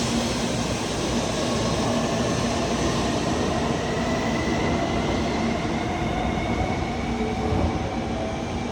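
Shinkansen train running, a steady loud rush of wheel and air noise with faint whining tones, one sliding slowly in pitch, easing slightly near the end.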